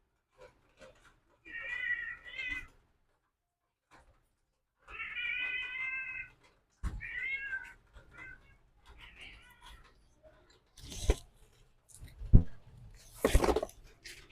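A domestic cat meowing several times, with one longer call about five seconds in. A few sharp knocks and a rustle follow near the end.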